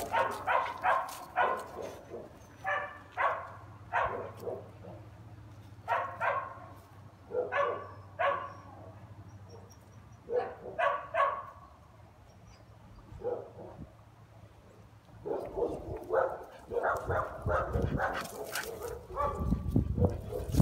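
Dogs at rough play giving short barks and yips in quick clusters of two to four, with pauses between. From about fifteen seconds in the calls come almost without a break, and a low rumble joins them near the end.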